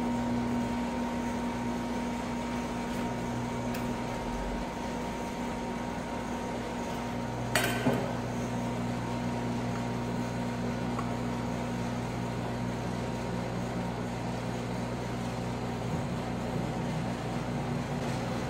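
Steady hum of a rolled-ice-cream machine's refrigeration unit running under the cold steel pan, with two sharp metal clinks of a steel spatula against the pan about eight seconds in.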